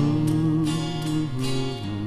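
Instrumental passage of a 1970s Thai pop song played from a vinyl LP: sustained chords with no singing.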